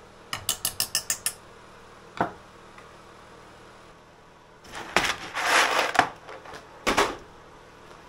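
A quick run of seven clicks, then a single knock. About five seconds in, a plastic tray of loose brass plug pins rattles as it is moved, and it is set down with a clack.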